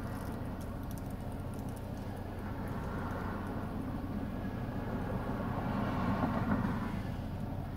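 Steady low hum of a car idling, heard from inside the cabin while it waits at a traffic light, with passing traffic outside. A vehicle going by makes the noise swell to its loudest about six seconds in, then ease off.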